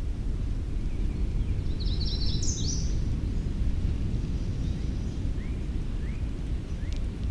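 Wild songbirds singing: a quick, jumbled high-pitched phrase about two seconds in, then short rising chirps repeating about every half second near the end. Under it runs a steady low rumble of background noise.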